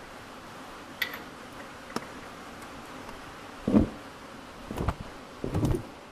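Ratchet wrench turning a socket to tighten a tractor drain plug: two single clicks, then short bursts of ratchet clicking with each swing of the handle, the loudest about two-thirds of the way in. Under it, a steady hiss of rain on a tin roof.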